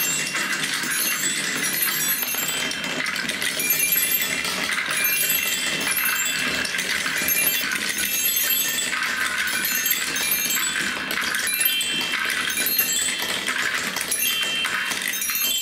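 Dozens of glass marbles rolling and clattering continuously along wooden marble-run tracks. Short ringing notes are scattered through it as marbles run over a chime-tube ramp.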